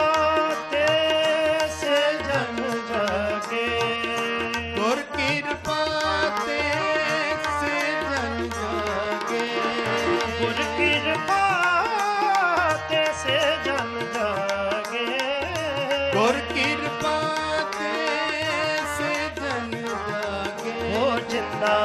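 Sikh kirtan music: harmoniums playing the shabad's melody over a steady tabla beat, with a few sliding vocal phrases between the sung lines.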